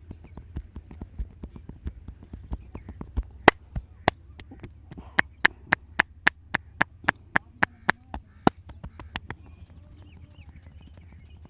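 Rhythmic percussive massage strokes: hands striking the body in an even beat of about three or four a second. Soft low thumps at first give way, about three seconds in, to a run of sharp, loud slaps, which stop a little after eight seconds.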